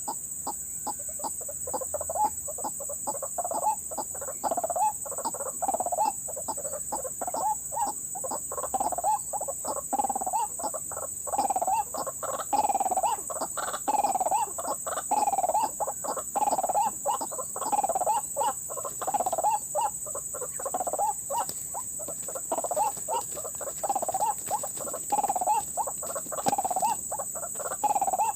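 White-breasted waterhen calling over and over, a clucking call repeated about once a second, with a steady high insect drone behind it.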